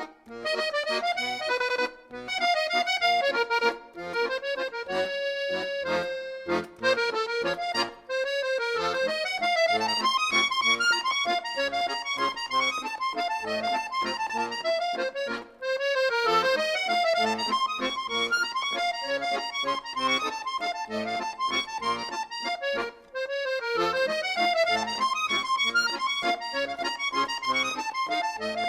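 Instrumental music: a quick melody over a steady bass line, with one chord held for about a second and a half around five seconds in.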